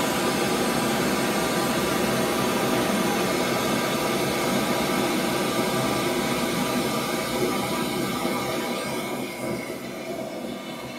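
Steady full-range test noise played through a Huper LA210P line array speaker (2x10-inch mid-lows, horn-loaded high driver) for an acoustic frequency-response measurement. It starts suddenly and grows somewhat quieter over the last few seconds.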